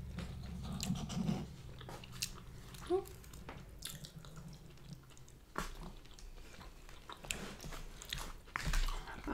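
Two people chewing and biting sushi and poke bowl food: wet mouth smacks and short clicks scattered irregularly through.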